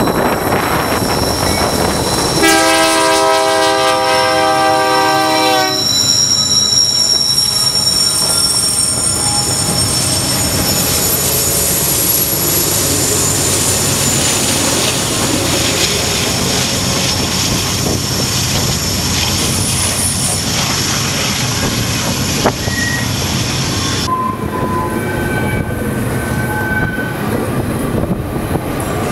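BNSF diesel locomotive passing close by and sounding its horn in one long blast of about three seconds. Then a double-stack intermodal train rolls past, its rumble carrying high, steady wheel squeal from the curve. The squeal shifts lower near the end.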